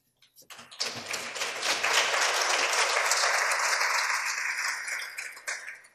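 Audience applauding in a meeting room. The clapping starts about a second in, holds steady, then dies away near the end.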